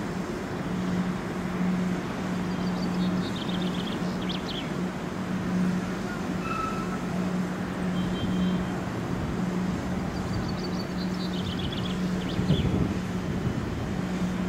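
A train standing at the station, its steady low hum pulsing slightly over a wash of background noise. A small bird sings a short falling run of chirps twice.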